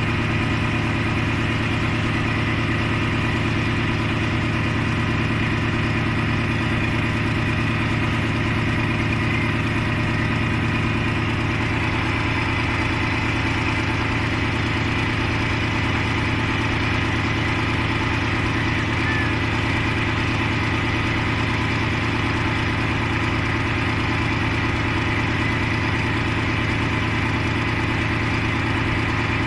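A diesel engine idling steadily, an even hum that holds the same speed throughout with no revving.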